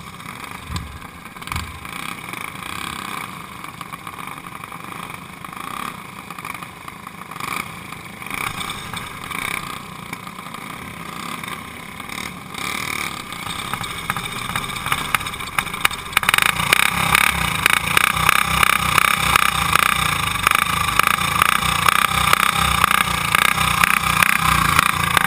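Single-cylinder racing-kart engines running. About sixteen seconds in, a closer engine starts up and runs much louder, with a rapid, even firing beat.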